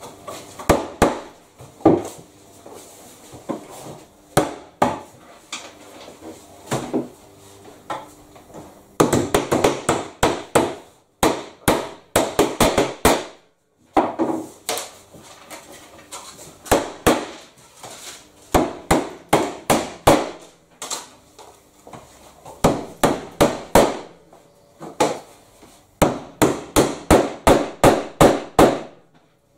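Hammer driving nails to pin pre-formed GRP roof trim onto a timber batten: runs of quick, sharp blows, about four a second, each with a short ring, broken by brief pauses.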